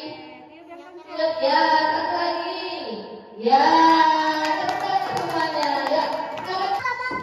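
A group of young children singing together, starting about a second in, with hand-clapping joining in from about halfway through.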